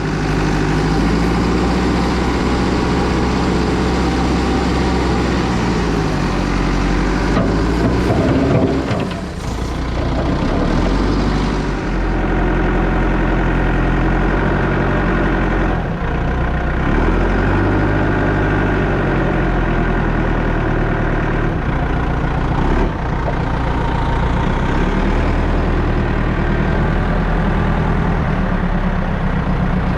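Excavator's diesel engine running at working speed, its note shifting up and down as the load changes, with a brief dip about nine seconds in.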